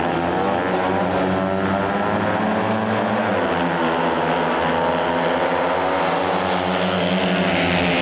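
Several 500cc speedway bikes' engines revving hard together at the start tapes, then accelerating away about three seconds in, the revs rising and falling as the pack races into the first bend.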